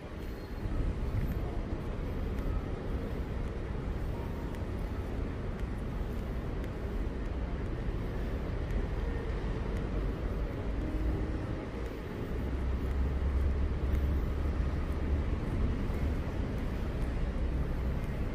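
City street ambience: a steady low rumble of vehicle traffic, swelling louder for a few seconds about twelve seconds in.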